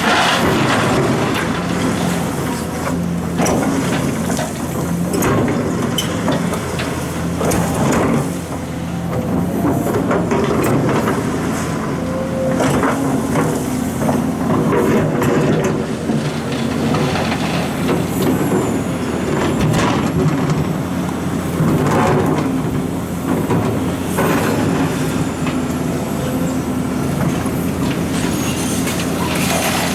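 Liebherr R926 crawler excavator's diesel engine running steadily under load, with frequent knocks and clatter as it works the gravel.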